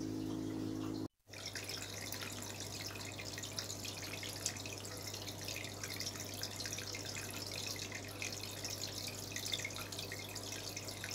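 Water trickling and dripping in many small rapid drops over a steady low hum, starting about a second in after a brief dropout.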